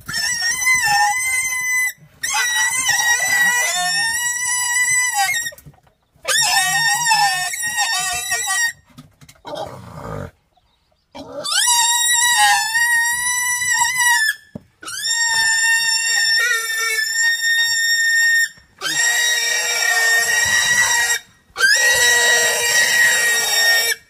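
A pig squealing in a run of loud, high-pitched screams, each lasting one to four seconds with short breaks between them, as it is restrained and tied into a wire pig basket.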